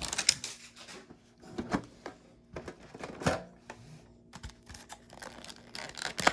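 Pokémon card product packaging being handled: scattered rustles and light clicks of cardboard and plastic as the contents are pulled out.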